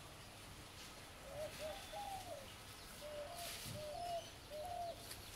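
A dove cooing: two short runs of repeated soft, arched notes, the second run starting about three seconds in.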